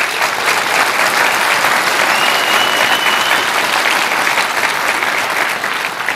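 Large seated audience applauding, steady and dense, dying away near the end. A single brief high steady tone sounds through the clapping about two seconds in.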